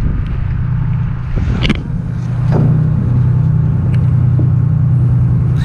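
A boat's engine running with a steady low hum, with wind buffeting the microphone over it. A couple of short scuffing noises come near the middle, and the hum grows a little stronger about halfway through.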